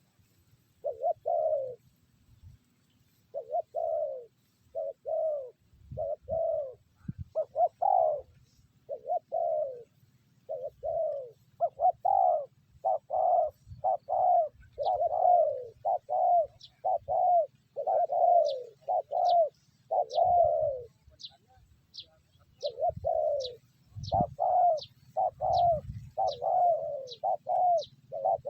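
Spotted doves cooing in a long run of repeated coos, each note falling slightly in pitch. Thin high chirps from a smaller bird, about two a second, come in partway through, over a low hum and a few dull thumps.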